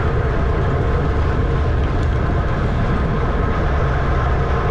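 Steady wind rush and low rumble on the microphone of a camera riding on a racing bicycle at speed.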